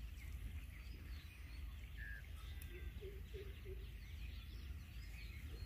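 Birds chirping faintly, with a quick run of four short, lower notes a little past halfway, over a steady low rumble.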